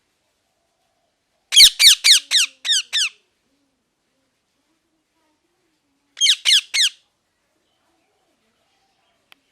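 Parrot giving two runs of short, harsh squawks, each falling in pitch: five in quick succession, then three more about three seconds later.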